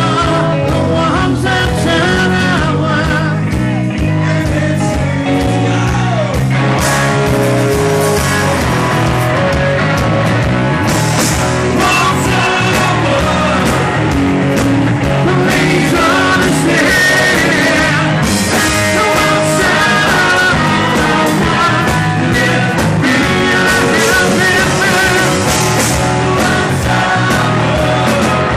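Rock band playing loud live music, with a man singing lead into a microphone over electric bass and guitar.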